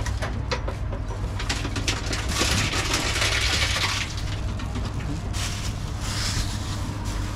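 Reverse vending machine taking in a plastic bottle: a steady low hum with scattered clicks, and a louder rushing noise from about two to four seconds in and again briefly near six seconds as the bottle is processed.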